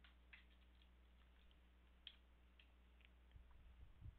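Near silence with a few faint computer keyboard keystrokes, irregularly spaced, over a low steady hum.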